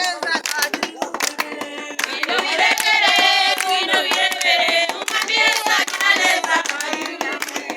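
A group of people singing together to steady rhythmic hand clapping; the singing comes in strongly about two seconds in, with wavering, sustained voices over the clapping.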